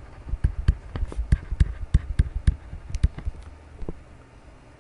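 Stylus clicking and tapping on a tablet during handwriting: an irregular run of sharp ticks, a few a second, that thins out after about three and a half seconds.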